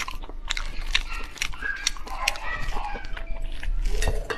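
Close-miked wet eating sounds: a person chewing with sticky lip smacks while tearing apart sauce-coated food with plastic-gloved hands. Many short, sharp clicks come one after another.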